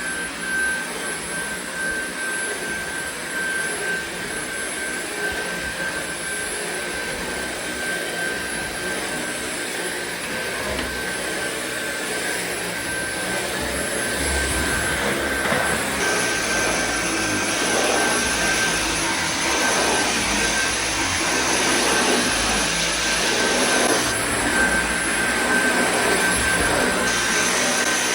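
Dyson cordless stick vacuum running as it picks up pine needles: a steady rush of air with a constant high motor whine. It gets somewhat louder and fuller in the low end from about halfway.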